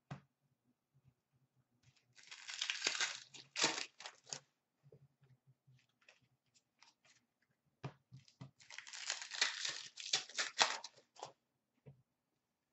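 A trading-card pack wrapper being torn open and crinkled, in two bursts of about two to three seconds each, with a few light clicks of cards being handled between them.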